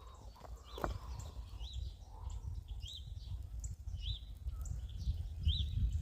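A small bird chirping: about five short notes, each rising and falling, spaced roughly a second apart, over low wind rumble.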